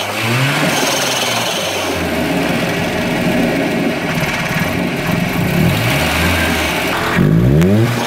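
Volvo B230FT turbocharged four-cylinder engine idling unevenly. It is revved briefly just after the start and again near the end, where it rises in pitch and is loudest.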